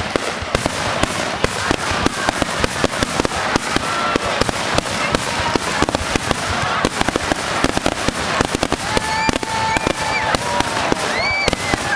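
Fireworks display: dense, continuous crackling of many small bursts, several a second, with a few drawn-out pitched tones near the end.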